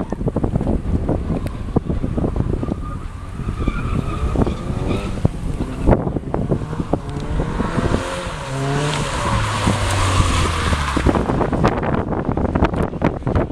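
Race car at speed, its engine revving up and falling back through the gears, with a brief tyre squeal a few seconds in. Heavy wind buffeting on the microphone throughout.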